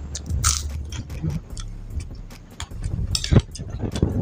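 Close-miked eating: a person biting and chewing a crisp cracker, with irregular sharp crunches and wet mouth sounds. A loud crunchy bite comes about half a second in and another around three seconds in.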